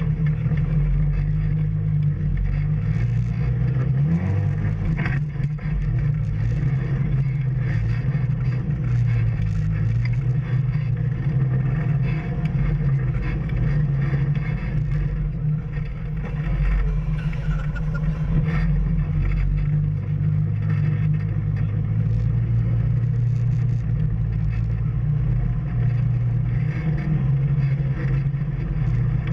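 Off-road vehicle engine running steadily on a trail, its low engine note rising and falling slightly with the throttle, with occasional knocks and rattles.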